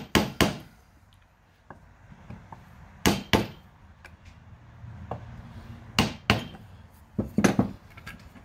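Hammer blows on a ground-down socket used as a seal driver, tapping a new oil seal into a Honda GX390 crankcase cover. Sharp metallic strikes come in pairs, about eight in all, a few seconds apart, as the driver is worked around the seal's outer edge.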